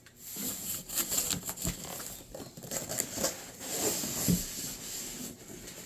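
A cardboard box and its packaging being opened by hand, with irregular rustling, crinkling and scraping, and a louder knock about four seconds in.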